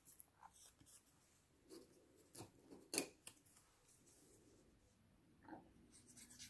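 Faint handling sounds of paper cut-outs and a plastic glue bottle on a craft mat: soft rustles and small ticks, with one sharp click about three seconds in.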